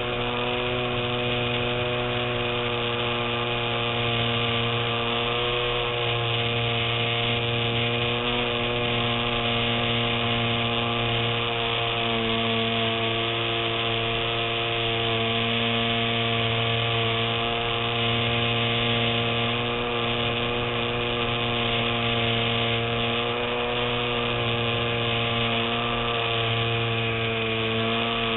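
Electric motor and propeller of a radio-controlled model warplane in flight, heard from on board the airframe: a steady whine that shifts slightly in pitch with the throttle, over rushing air.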